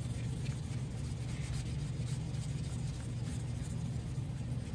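Metal body-hammer head being wet-sanded by hand on soaked 600-grit wet/dry sandpaper: a soft, scratchy rubbing back and forth. A steady low hum runs underneath.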